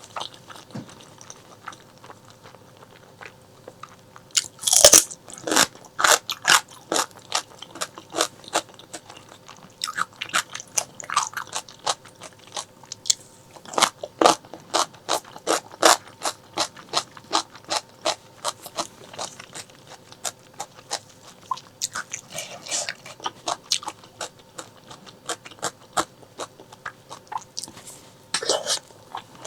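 Close-miked mouth sounds of eating braised pork leg: a loud bite about five seconds in, then steady chewing with sharp, clicky smacks at about three a second, and another louder bite near the end.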